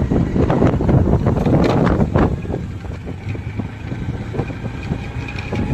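Gusty wind buffeting the microphone in a storm: a heavy, rushing rumble that surges in the first couple of seconds, then eases a little.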